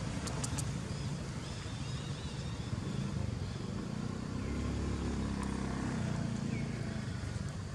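Low, steady rumble of a motor vehicle's engine, with a pitched engine hum swelling about four seconds in and fading after six.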